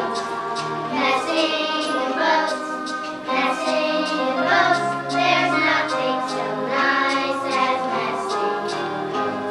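A group of children singing a song together over a steady instrumental accompaniment.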